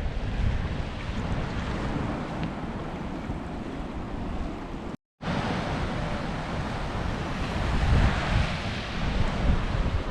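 Surf breaking and washing on a black sand beach, with wind buffeting the microphone. The sound cuts out completely for a moment about halfway through.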